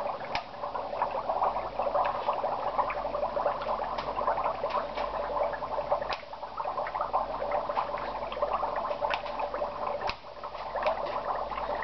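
Dry ice bubbling in a sink of soapy dishwater: a steady gurgling churn with many small pops and crackles as the gas bubbles up through the water and suds.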